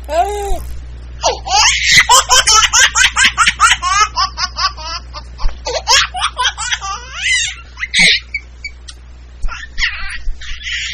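Someone laughing hard and high-pitched: a long run of quick 'ha's, about five a second, that thins out after about seven seconds.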